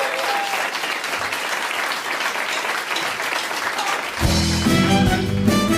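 Audience applauding, then about four seconds in a live band starts playing the song's intro.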